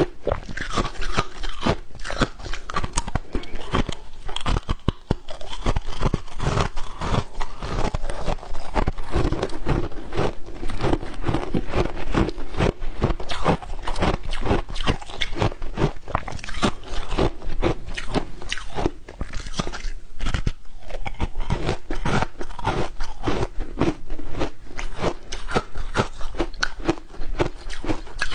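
A person biting and chewing mouthfuls of frozen ice, plain and matcha-flavoured, in a dense run of crisp crunches picked up close on a clip-on microphone. There is a short lull about twenty seconds in.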